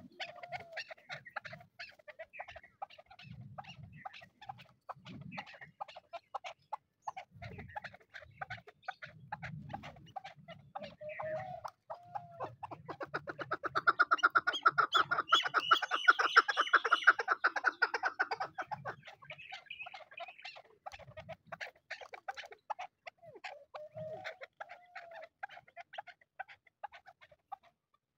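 Chukar partridges calling: a continuous series of rapid clucking 'chuk' notes that builds into a loud, fast run of calls in the middle, with a few short rising call notes.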